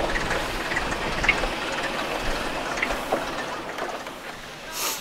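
A classic truck's diesel engine running with a low rumble that dies down about four seconds in, then a short, sharp hiss of air from its brakes near the end.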